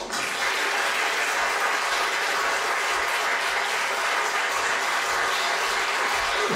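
Audience applauding: the clapping breaks out suddenly and holds steady and loud.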